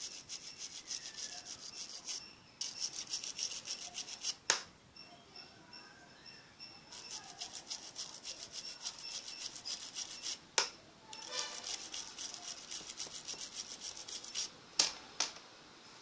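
A swab scrubbing briskly back and forth at the power-button contacts of a Samsung phone, in several bursts of rapid strokes: cleaning the button contacts of a phone that will not power on. A few sharp clicks come between the bursts, two of them close together near the end.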